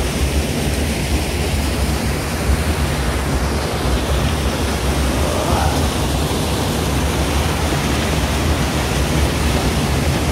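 Steady rush of flowing water from a stream or channel, an even, unbroken noise that stays constant throughout.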